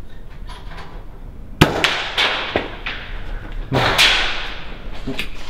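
Webley & Scott Mark 1 spring-piston air pistol fired once, a sharp crack about a second and a half in with a short echoing tail, followed by a few duller knocks and clatter from the pistol being handled.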